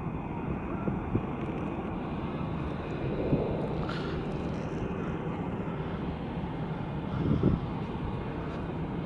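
Jet airliner's engines running at a distance as it taxis, a steady even noise with no separate events.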